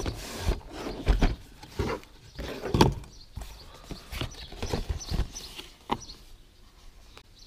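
Cardboard box being handled and opened: irregular hollow taps and knocks with papery rustling between them, the loudest about one and three seconds in.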